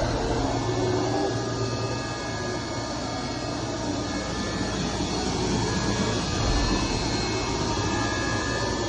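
A CNC vertical machining center running, likely the Hwacheon Sirius 550: a steady mechanical din with several steady whining tones over a low hum.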